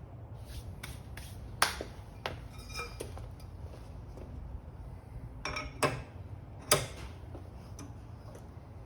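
Metal tools clinking and clanking during the tire change, a dozen or so sharp knocks with a few louder ones. One strike, about three seconds in, rings briefly like struck steel.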